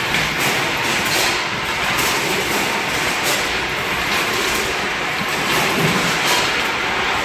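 Sausage weighing and packing line running: a steady mechanical din from conveyors and machinery, with light clacks every half second or so.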